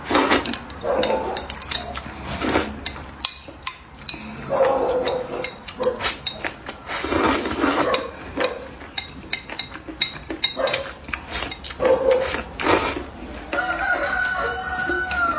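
Rice noodles being slurped and chewed in repeated noisy bursts, the longest slurp about halfway through. Near the end a chicken calls in the background for about two seconds.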